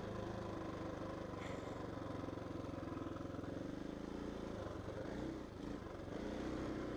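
KTM 640 LC4 single-cylinder four-stroke dirt bike engine running under throttle as the bike slides across wet grass and mud. The revs fall and rise, and the engine eases off briefly about five and a half seconds in.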